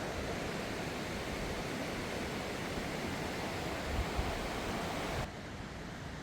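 Steady rushing of a raging, flood-swollen river: an even wash of water noise that drops abruptly in level a little over five seconds in.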